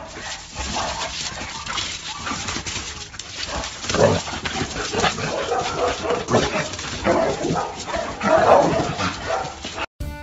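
Several dogs barking and yelping over and over, with whining in between, as they jump at a monkey sitting out of reach on top of a wall. The loudest barks come about four seconds in and again near the end.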